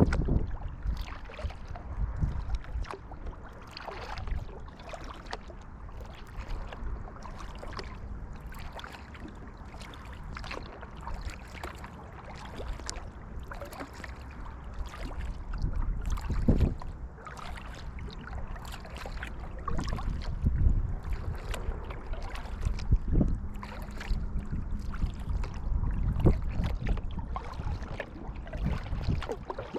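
Kayak paddle strokes in the water, with splashes and drips at an uneven pace and water lapping against the hull. A low wind rumble runs on the microphone underneath.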